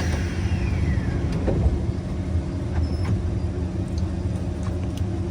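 Steady low rumble inside a Kawasaki C151 MRT train carriage, with a falling whine over about the first second and a few faint clicks.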